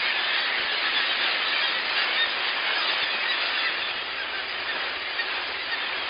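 A breeding colony of black-legged kittiwakes calling, heard as a steady din of many birds at once with no single call standing out.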